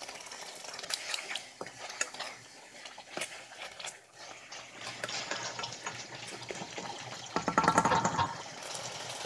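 A wooden spoon stirring a thick chicken stew in a pot, with clicks of the spoon against the pot and the sauce sizzling. A louder buzzing rattle lasts about a second near the end.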